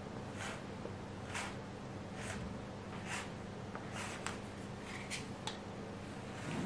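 Plastic dough scraper pressed down through bread dough onto a wooden board, a short scrape with each cut, about one a second, over a steady low hum. A soft knock right at the end.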